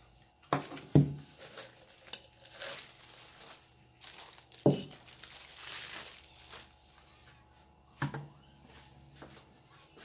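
Plastic packaging wrap crinkling and rustling as it is pulled off plastic blender parts, broken by sharp knocks of the parts being set down on a table: two about a second in, the loudest of all, one near the middle and one near the end.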